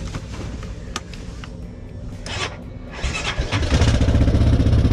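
An engine is cranked and starts about three and a half seconds in, then runs steadily with an even, rapid pulse.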